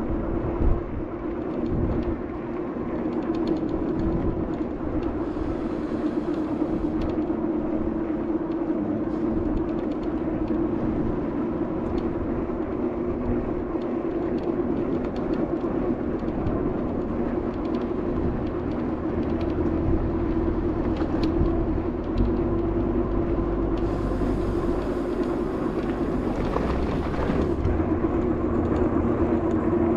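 Juiced Scrambler electric bike under way at a steady speed: a constant motor hum with wind and road rumble underneath, the rumble growing heavier in the second half. A brief hiss passes about two-thirds of the way through.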